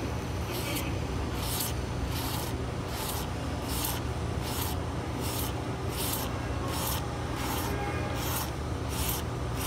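Razor blade, its corners ground off and wrapped in tape, scraping a paint run on a car's fresh paint in short, even strokes, about one every three quarters of a second, over a steady low hum. Each pass shaves the raised run down toward the surrounding paint.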